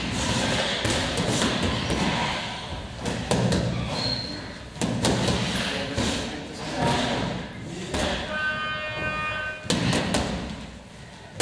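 Gloved punches smacking into focus mitts, sharp impacts coming irregularly, singly and in quick pairs. About eight seconds in, a steady high tone is held for a second and a half.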